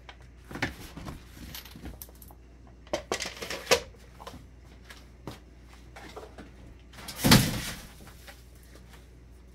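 Handling noises from moving a cake on a plastic cake turntable onto a granite counter: a few light knocks and rustles, a sharp knock a little before four seconds in, and a louder thump about seven seconds in.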